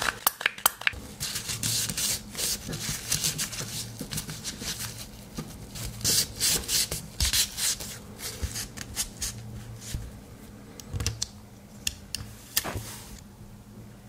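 A Victorinox Tinker Swiss Army knife being cleaned by hand: irregular rubbing and scrubbing with many small clicks, busiest in the first half and thinning out near the end.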